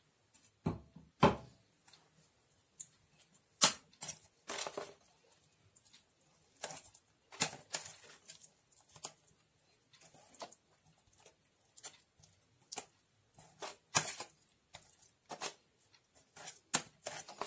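Spoon clicking and scraping against a stainless-steel salad ring and bowl while spreading mayonnaise over a layer of chopped chicken: irregular light clicks and short scrapes, a few sharper knocks among them.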